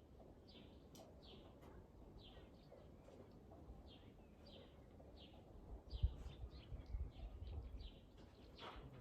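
Small birds chirping, faint short downward chirps repeated a couple of times a second. A few low rumbling bumps come in about six seconds in and die away near the end.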